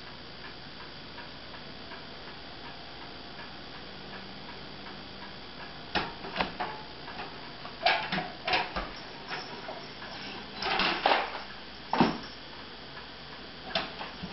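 Mail being pushed through a front door's metal letter slot: the flap clacks and rattles in several bursts, starting about six seconds in, as letters drop onto the floor.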